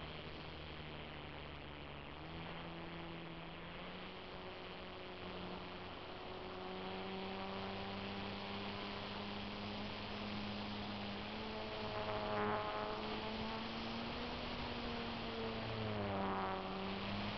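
Electric motor and propeller of an RC park-flyer plane, heard from a camera aboard it: a steady whining hum that steps up in pitch about two seconds in, then rises and falls as the throttle changes, over a constant airflow hiss.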